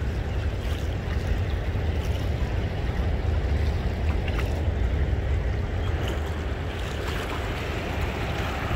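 Steady rush of turbulent river water in the tailwater of a dam running with its floodgates open, with a low, gusty rumble of wind on the microphone.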